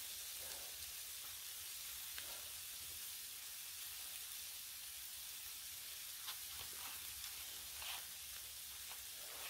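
Ground tri-tip burger patties frying on a hot Blackstone steel flat-top griddle: a steady sizzle with a few small pops and crackles.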